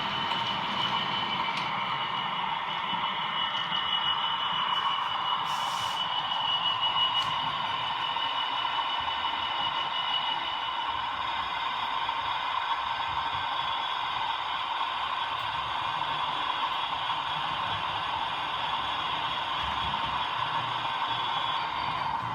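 OO gauge model train running steadily along the track, a continuous motor whine over the rattle of wheels on rails.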